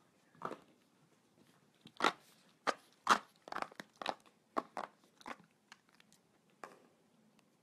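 A fox terrier biting and chewing hollow plastic ball-pit balls: irregular sharp crunches and crackles, coming quickest from about two to five seconds in.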